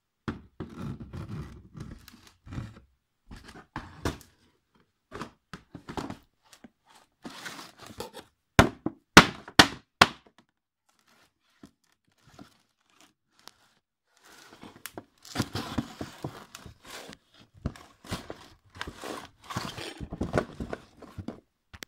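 Cardboard box being handled and torn into: irregular crinkling, rustling and tearing of thin card, with four sharp knocks about nine to ten seconds in.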